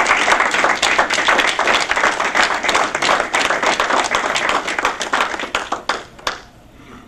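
Audience applauding: many hand claps in a dense patter that thins out and stops about six seconds in.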